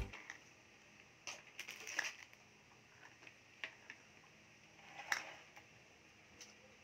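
Faint, scattered clicks and taps of small plastic lids and cases being picked up and set down on a wooden table, in two small clusters, about two seconds in and again about five seconds in.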